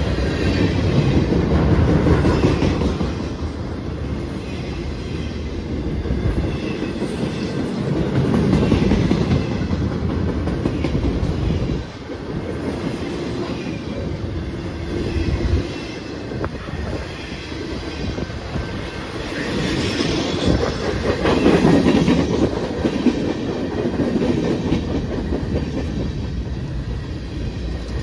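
Freight train of tank cars and flatcars passing close by: a steady rumble and clatter of steel wheels on the rails, rising and falling in waves as the cars roll past.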